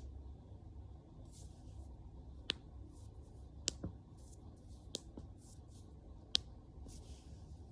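Knuckles cracking: about half a dozen sharp, separate pops at irregular intervals, with soft rustling of hands and skin between them.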